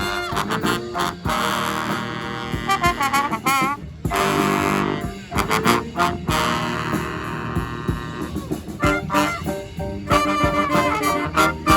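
Brass band playing live, horns sounding chords and runs, with a wavering high note about a third of the way in and sharp percussive hits.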